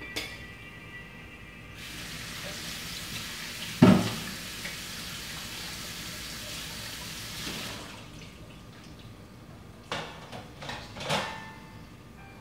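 A water tap running for about six seconds, with one loud knock about four seconds in and a couple of lighter knocks near the end.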